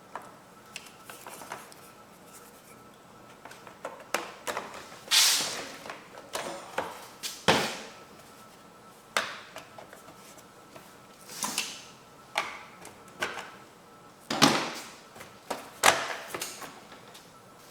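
Irregular clicks, knocks and scrapes of hard plastic and metal parts being handled and fitted, as the mower's top cover is put back on.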